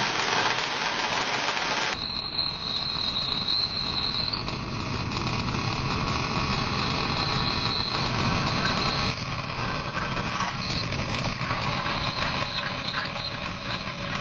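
Power tool motor running steadily. About two seconds in the sound changes abruptly, and a high whine rides on top for a couple of seconds.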